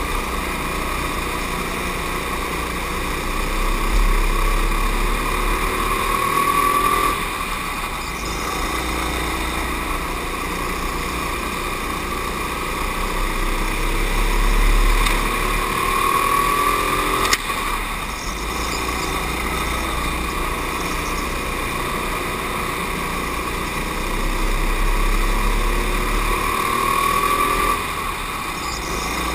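Racing go-kart's motor heard from on board, its pitch climbing three times as it speeds up on the straights and falling back as it slows into the corners. A sharp knock about 17 seconds in.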